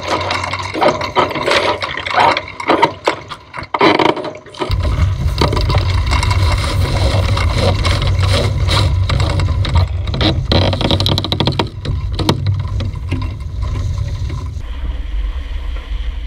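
Sailing yacht beating upwind in strong wind: rush of water along the hull and wind on the microphone, with clattering, knocking and rattling of sheets and deck gear as the crew tacks. About five seconds in, a heavy low wind rumble sets in and stays.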